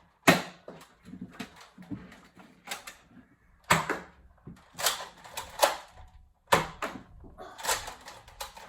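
Irregular sharp clacks and thuds, about a dozen spread unevenly, from foam-dart Nerf blasters being fired and handled and darts striking nearby surfaces.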